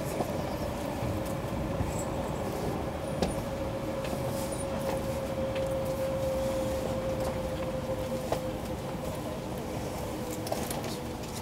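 Cabin sound of an E2-series Shinkansen train running slowly into a station: a steady rumble of the running gear with a single whine that falls slowly in pitch as the train brakes, weakening after about eight seconds.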